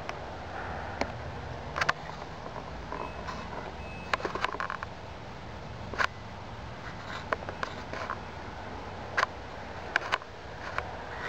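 Scattered sharp knocks and clicks as someone climbs onto a parked crawler bulldozer and settles into its seat, over a steady low rumble. Two short faint high beeps sound about three and four seconds in.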